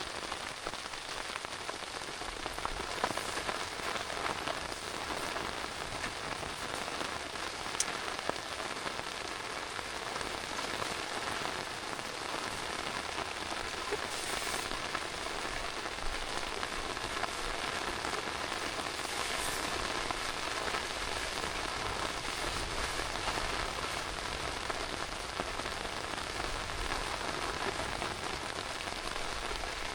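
Heavy rain falling steadily, with a few sharper drop ticks now and then.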